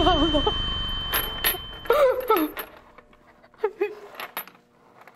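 A woman wailing and sobbing in anguish: broken, wavering cries with gasps between them. Her handcuff chain clinks a few times, and a steady high electronic tone cuts off about two seconds in.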